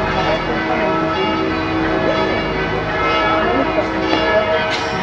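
Bells ringing: many overlapping sustained, ringing tones at a steady level.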